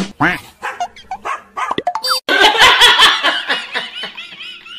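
Dog barking at a stuffed toy tiger, about half a dozen sharp barks in quick succession. After about two seconds the barks give way to a louder, dense mixed sound that ends in a wavering high tone.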